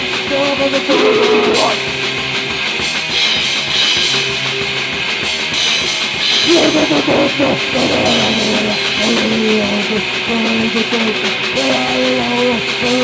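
Rock band demo recording: distorted electric guitar playing over a drum kit, loud and continuous.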